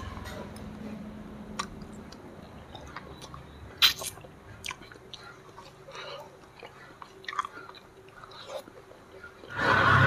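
A person chewing and biting fried egret meat off the bone, with a few scattered sharp clicks, the loudest about four seconds in.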